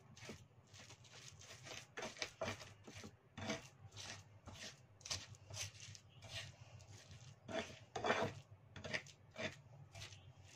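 Pestle grinding and scraping spice paste on a flat stone cobek (Indonesian mortar), in irregular rasping strokes about one or two a second. The spices, turmeric, coriander and garlic among them, are being pounded into a bumbu paste.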